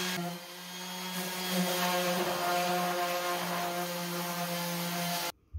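Electric random orbital sander running steadily against the fiberglass-skinned edges of a cored boat frame, rounding them over. It cuts off abruptly near the end.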